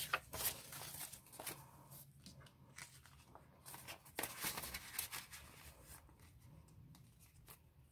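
Paper banknotes and a clear plastic binder envelope being handled: quiet, irregular crinkling and rustling with small clicks as bills are slid into the pouch.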